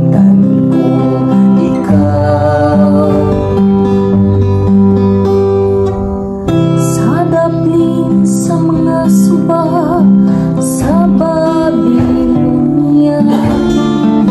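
Acoustic guitar strummed as accompaniment to a woman singing a responsorial psalm, her voice coming in over the chords again after a short pause about six seconds in.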